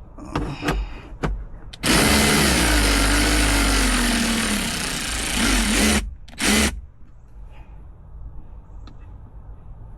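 Power drill turning a long screw in the car's interior trim: one long run of about four seconds whose whine slowly drops in pitch as the motor loads up, then a short second trigger pull. A few light clicks of handling come before it.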